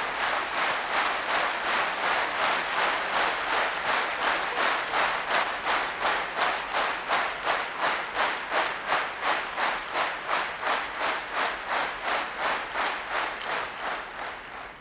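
Large crowd clapping in unison at about three claps a second, dying away near the end.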